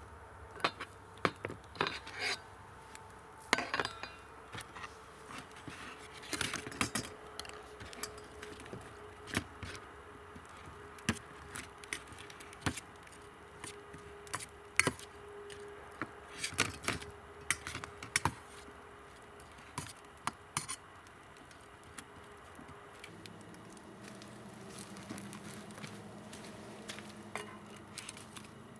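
Metal cutlery and cookware clinking and clattering in irregular sharp knocks, with a faint steady hum through the middle stretch.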